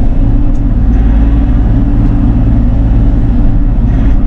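Bobcat E42 mini excavator's diesel engine running steadily, heard from inside the operator's cab while the arm lifts and swings an uprooted cedar stump.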